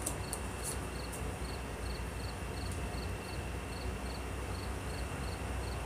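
A cricket chirping steadily, a little more than two short chirps a second, over a steady low hum and hiss of room noise.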